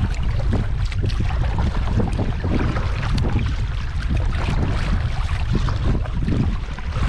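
Strong wind buffeting the microphone: a loud, steady rumbling rush, with water noise beneath it.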